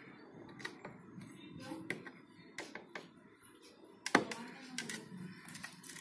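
Irregular sharp plastic clicks and rattles of wire-harness connectors being handled and pushed onto a refrigerator's control board, the loudest click about four seconds in.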